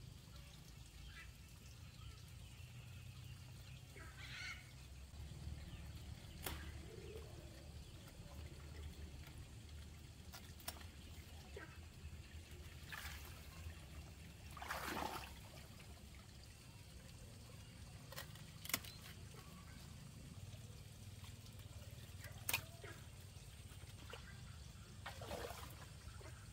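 Luffa gourds being cut from the vine and handled: scattered sharp clicks and snaps and a few brief rustles of leaves and the bamboo basket, over a faint low outdoor rumble.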